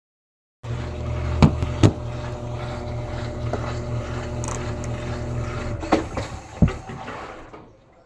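Electrolux Essential Care 11 kg top-loading washing machine running: a steady motor hum with a few sharp knocks. It starts about half a second in and fades out near the end.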